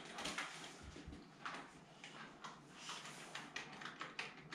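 Faint, irregular clicks and taps of a computer keyboard being typed on, with light handling noise around them.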